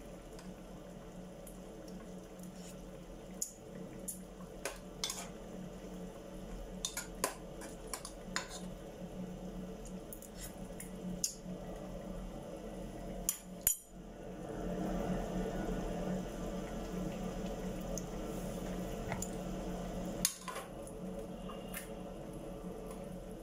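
A metal spoon clinking and scraping against a cooking pot, in scattered sharp clinks with the loudest a little after halfway, over a steady low hum. A louder stretch of rushing noise runs for several seconds after the loudest clink.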